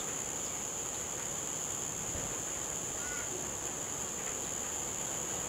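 A steady, high-pitched insect drone over a faint even hiss of outdoor background noise.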